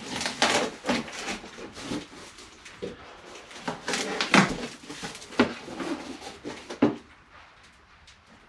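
Cardboard box being opened and its packaging handled: irregular scrapes, rustles and knocks, thinning out near the end.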